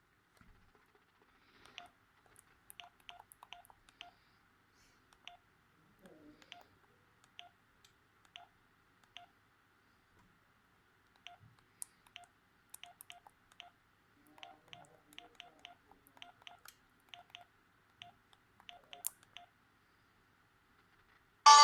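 Keypad beeps from a Pirelli DP-L10 mobile phone: short beeps of the same pitch, one for each key press, coming in irregular runs as the buttons are pressed.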